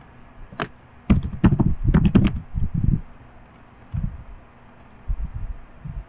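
Typing on a computer keyboard: one click, then a quick run of keystrokes lasting about two seconds, followed by a few scattered softer taps.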